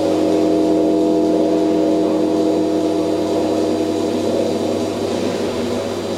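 A small robot's motor whirring steadily as it travels along its rail, made of several steady tones over a low hum, the strongest tone fading out about halfway through.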